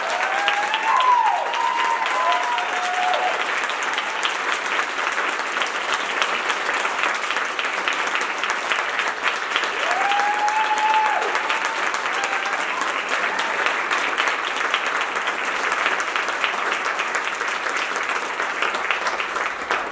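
Theatre audience applauding steadily, with a few cheers rising above the clapping near the start and again about ten seconds in.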